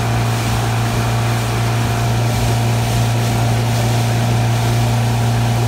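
Honda 75 hp four-stroke outboard running steadily at towing speed, a constant low hum, with the steady rushing hiss of the boat's wake and wind under it.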